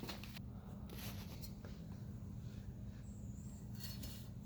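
Quiet room tone: a steady low hum with a few faint rustles.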